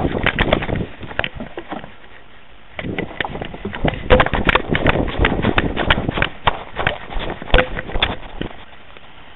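Rapid, irregular thumps and clicks from a running dog's paws and the camera strapped to it jolting with every stride, with a brief lull about two seconds in.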